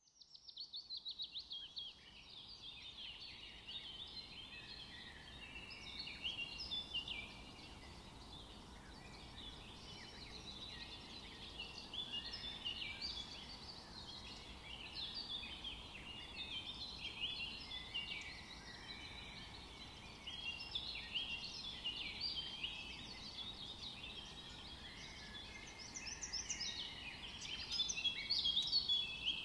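Many small birds chirping and twittering together, a continuous chorus of short, quick high calls that grows a little louder near the end.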